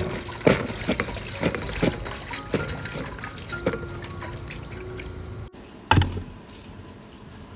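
Kitchen work with water: trickling and splashing, crossed by irregular knocks and clatters about every half second, then one heavier thump a little past the middle.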